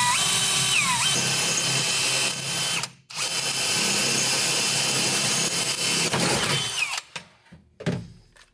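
Handheld power tool running with a loud whine that rises and falls as it speeds up and slows. It stops briefly about three seconds in, runs again until about seven seconds in, and gives one short final burst.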